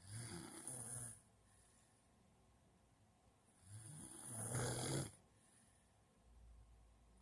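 Snoring: two low, rasping snores about four seconds apart, each lasting about a second.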